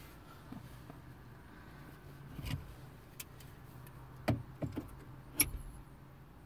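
Sharp plastic clicks and knocks as a radio bezel is handled and pressed against a car's dashboard trim to seat its clips. There are about five of them, spread over the second half, over a faint low hum.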